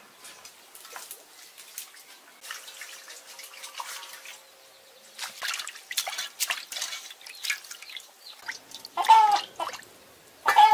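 Water splashing and dripping as herbs and raw pork are rinsed by hand in a metal basin. Near the end a chicken clucks loudly in two bursts.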